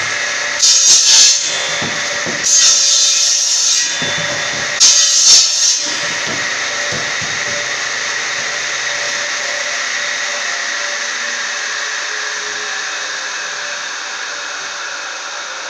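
Table circular saw running at full power, making three short, louder cuts through wooden branches in the first six seconds, then the blade spinning freely with a steady whine that slowly fades a little.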